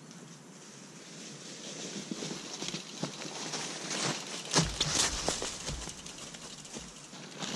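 A mountain bike approaching fast over dry leaves and dirt, its tyres crackling and crunching through the leaf litter. The noise builds to a peak of crackles and knocks as it passes close, about four and a half seconds in, then fades away.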